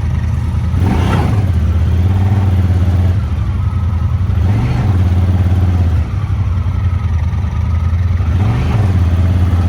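Off-road vehicle engine running at low speed, a steady low drone with short rises in engine speed about a second in, near the middle and near the end, as the vehicle creeps forward.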